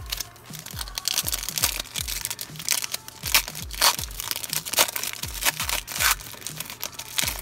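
Foil wrapper of a football trading-card pack being torn and crinkled open by hand, in bursts of crackling that stop about six seconds in, over background music with a steady beat.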